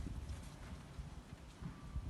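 Low, irregular thumps and rumble on a handheld phone's microphone as it is carried along a path.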